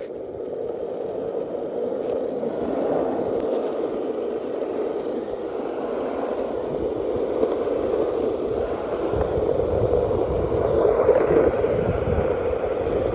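Skateboard wheels rolling over rough asphalt, a steady rolling noise that grows somewhat louder toward the end.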